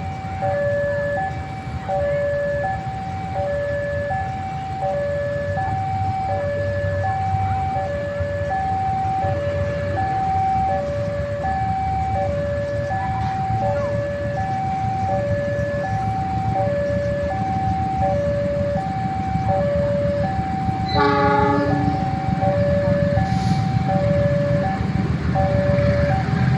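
Railway level-crossing warning alarm sounding a steady alternating two-tone chime, about one high-low pair a second, over a low rumble that grows louder toward the end as a train approaches. A brief horn blast sounds about 21 seconds in.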